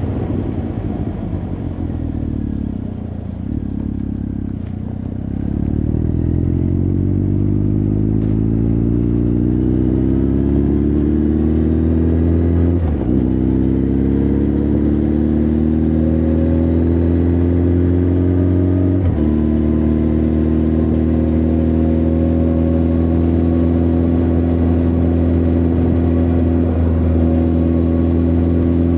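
Honda CB1300 Super Bol d'Or's inline-four engine and exhaust under way: the revs drop over the first few seconds, then climb steadily as the bike accelerates. Two quick gear changes come, about 13 and 19 seconds in, after which the engine holds a steady cruising pitch.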